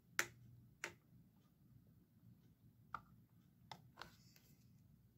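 A few faint, sharp clicks of plastic toy cookware being handled, a clear plastic cup knocking against a toy plastic frying pan; two clicks in the first second, then three more around three to four seconds in.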